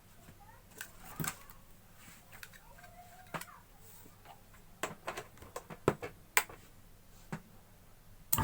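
Scattered light clicks and knocks, then just before the end a monoblock water pump motor switches on and runs with a steady hum, with no abnormal noise now that the loose impeller has been tightened.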